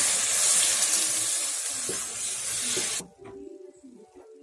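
Hot milk poured onto roasted semolina in a hot pan, sizzling in a loud steady hiss that stops abruptly about three seconds in.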